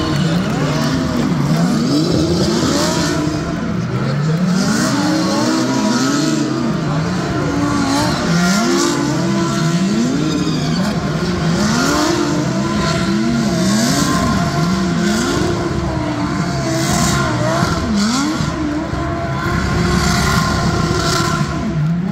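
Several DTM GT3 race cars doing donuts and burnouts: engines revving hard in repeated rising sweeps that fall back and climb again, over and over, with tyres squealing as they spin.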